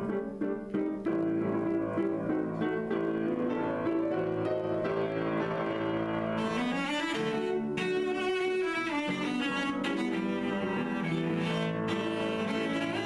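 Instrumental music: a slow bowed-string melody of long held notes with piano.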